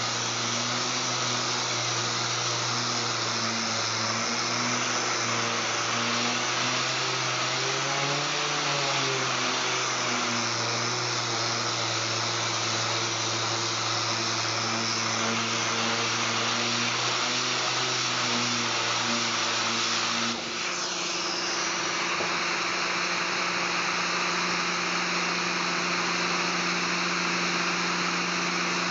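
3M 6-inch random orbital air sander running over a solid surface countertop, its pitch wavering as it is worked across the surface, with a dust-extraction hose drawing air. About twenty seconds in the sander stops and a steady machine hum carries on.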